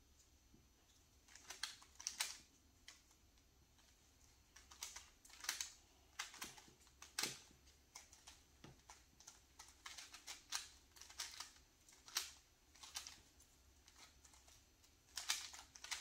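Two plastic Rubik's cubes being twisted quickly by hand: a soft, irregular clatter of quick clicks as the layers snap round, coming in short flurries with brief pauses.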